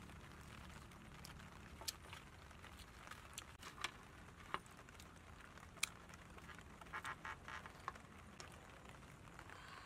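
Faint scattered clicks and crackles of a grilled pig leg being torn apart by hand over a metal tray, with a short run of quick crackling ticks about seven seconds in.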